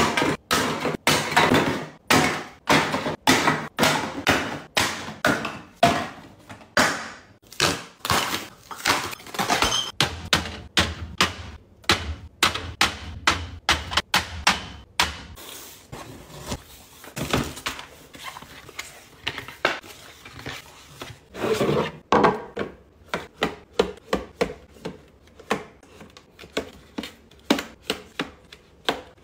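Drinks being packed away by hand: a run of sharp knocks, taps and clinks, a few a second. Aluminium cans tumble into a cardboard box, glass bottles are set down on a fridge shelf, and small milk cartons are pushed into a plastic storage bin.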